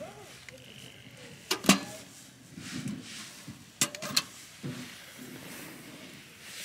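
A few sharp knocks with a short ring: one about a second and a half in, then two close together about four seconds in, over faint handling rustle.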